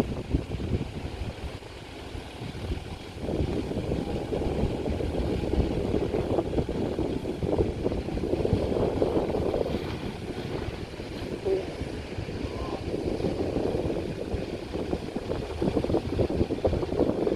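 Toyota Prado four-wheel drive's engine running as it works through a creek crossing, its level rising and falling.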